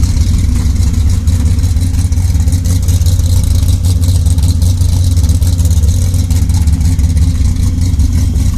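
Chevrolet 402 big-block V8 with a Comp Cams Big Mutha Thumpr camshaft idling loud and rough, with an uneven, choppy lope from the big cam.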